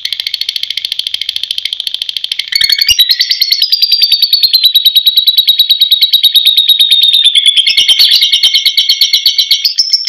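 Caged lovebird's long ngekek: one unbroken chattering trill of rapid, evenly repeated high notes. It grows louder about two and a half seconds in.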